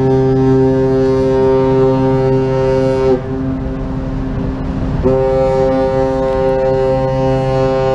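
The ferry Silver Breeze's ship whistle sounding its departure signal as a steady horn tone. The first long blast cuts off about three seconds in, and after a pause of about two seconds a second long blast starts and is still sounding at the end.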